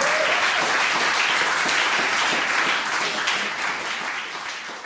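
Audience clapping and applauding as a song ends, dying down and fading out near the end.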